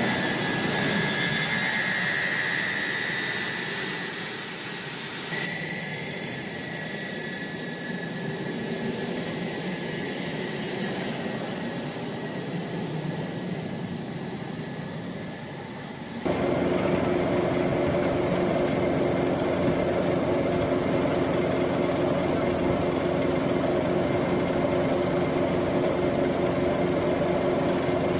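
Ilyushin Il-76 transport's four turbofan engines running on the ground, a steady jet whine and rush. The sound changes abruptly about 5 and 16 seconds in. After the second change it is louder and steadier, with several held tones.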